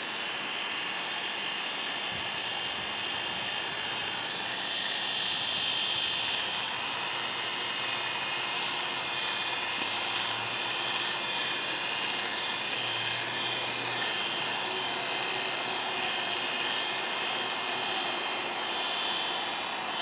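Oster A5 electric dog clippers running with a steady motor buzz and high whine as they clip a dog's coat.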